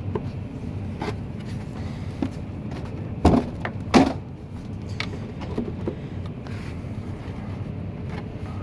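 Hard knocks and clunks of the water filter housing's parts being handled and fitted, two loud ones about three and four seconds in, over a steady low hum.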